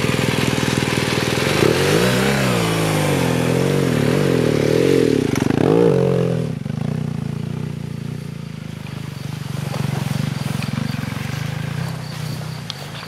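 BMW GS adventure motorcycle engine revving up and down several times under load as the bike is worked free of long grass. About six and a half seconds in, the revs drop to a lower steady note that slowly fades as the bike pulls away.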